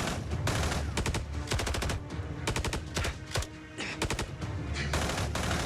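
Gunfire in a firefight: single shots and rapid bursts of automatic fire, several times over, above a steady low rumble of the music score.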